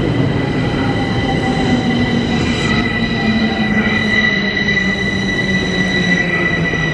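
A Bucharest Metro train running along the platform, with steady rumbling under a high squeal and a lower whine that slowly falls in pitch.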